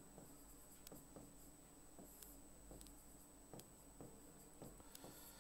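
Near silence: faint, irregular taps and scratches of someone writing, over a faint steady high-pitched whine.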